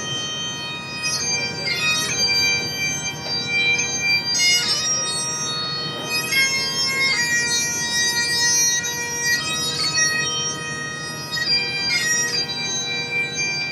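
Highland bagpipes playing a tune, the melody notes changing every second or so over unbroken steady drones.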